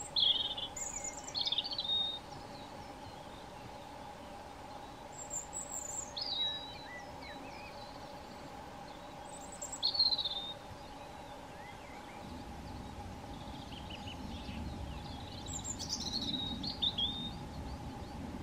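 European robin singing: four short, high warbling phrases a few seconds apart, with pauses between them.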